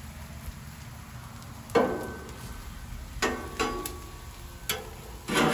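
Metal spatula scraping and clanking on a steel griddle top as it pushes diced Canadian bacon across the cooktop: about five sharp strikes, some ringing briefly, the loudest near the start and near the end.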